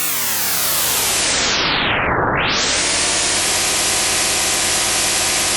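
Homemade synthesized rotating-machine sound, like a motor or pump running, a humming drone with a hiss over it. Its pitch sweeps down for about two seconds, rises again, and from about three seconds in holds steady.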